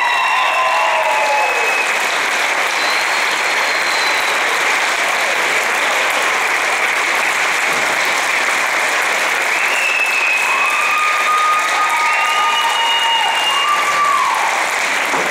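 A crowd applauding steadily. A few voices call out over the clapping at the start and again about ten seconds in.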